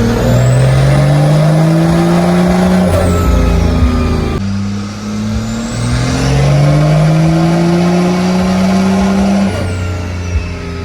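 12-valve Cummins diesel straight-six making two full-throttle dyno pulls. Each time the engine note climbs steadily for a few seconds, with a high turbo whistle rising above it, then the whistle drops away as the throttle is let off.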